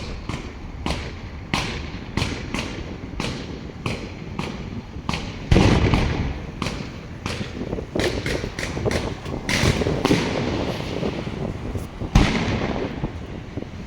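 Fireworks display: a rapid run of sharp bangs, several a second, with two much louder booms about five and a half and twelve seconds in, each trailing off slowly.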